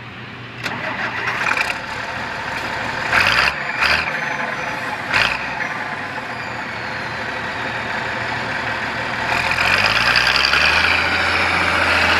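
Farm machinery engine running, with a few short clunks in the first half; about three-quarters of the way through it revs up and grows louder.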